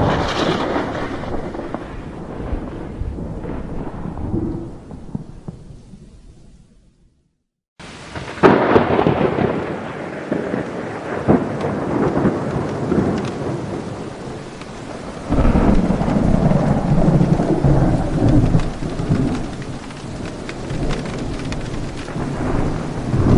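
Thunder: a clap at the start rolls off into rumble that fades out to a brief silence, then a second sharp thunderclap about eight seconds in gives way to long rolling rumbles that swell again about fifteen seconds in and near the end. Rain hiss runs under the thunder.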